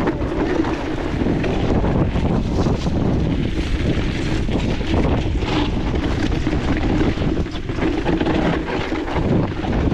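Wind buffeting an action camera's microphone during a fast e-mountain-bike descent of a steep dirt trail, with the tyres rolling over rough, rocky ground. Short knocks and rattles from the bike come through the rush.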